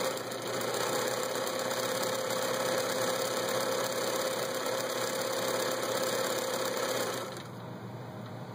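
Bernina Record 830 sewing machine running steadily, stitching through cloth, with a steady motor hum under the rattle of the needle mechanism; it stops about seven seconds in.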